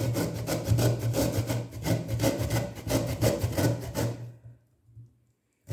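Turnip being grated by hand on a metal grater: quick, even rasping strokes, about five a second, that stop abruptly about four seconds in.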